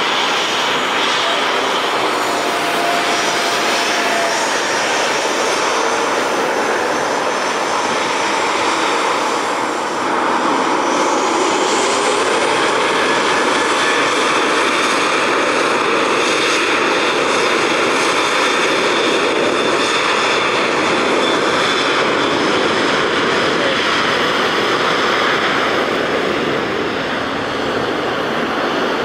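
Jet engines of a Boeing 737 airliner running on the runway, a steady jet noise with a high whine that grows louder about ten seconds in as the engines spool up for the takeoff roll.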